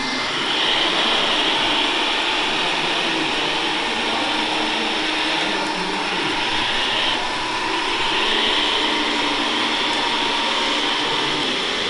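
Electric drive and gearbox of a radio-controlled three-axle tipper truck whining steadily as it pulls a loaded-looking tipper trailer over dirt, easing off briefly about seven seconds in.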